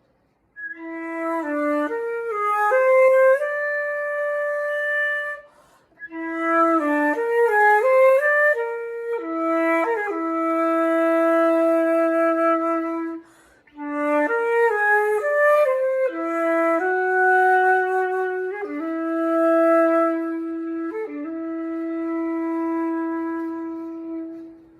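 Solo flute playing unaccompanied, in three phrases divided by short breath pauses. Each phrase starts with a quick flurry of notes and settles into long held tones in the flute's low-middle register, with a little breath noise audible.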